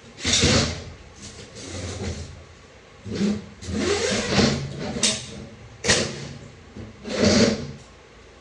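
Metal automatic-transmission parts being handled and moved on a workbench: an irregular series of clunks, knocks and scrapes, with about half a dozen sharper hits.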